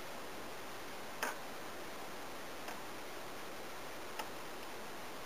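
Knife point tapping and chipping the shell of a hard-boiled egg: a few sharp little clicks, the loudest about a second in, over a steady hiss.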